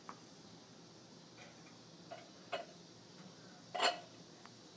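A few scattered sharp knocks and clacks of a hockey stick striking a small ball and the concrete patio, the loudest a little under a second before the end.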